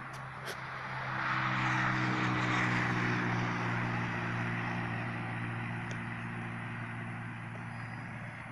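Electric RC trainer plane in flight: its 2830-size 1300 kV brushless motor and 11x6 propeller buzz at a steady pitch. The buzz swells louder about a second in and eases off toward the end.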